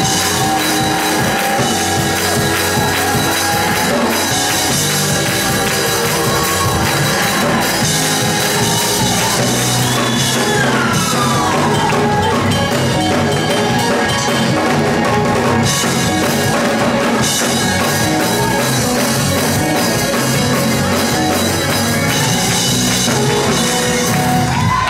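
Live gospel church music driven by a drum kit, loud and unbroken, with no speech over it.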